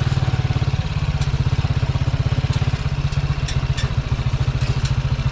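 Motorcycle engine running steadily while riding, a rapid even throb, with scattered light ticks and rattles.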